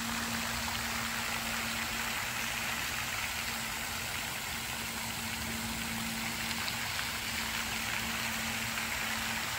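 Fountain spray falling back onto a pond, a steady rain-like splashing of water, with a steady low hum underneath.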